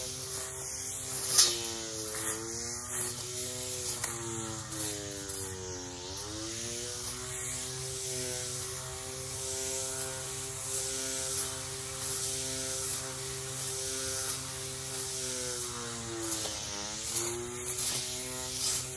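Battery-operated weed eater with a cutting blade, its electric motor whining steadily. The pitch sags briefly three times (a couple of seconds in, about six seconds in, and near the end) and climbs back, with a few sharp ticks.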